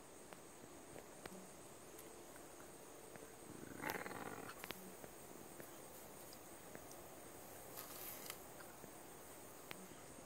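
Faint outdoor ambience: a steady high-pitched insect drone, with a brief soft scuffling noise about four seconds in and a few faint clicks.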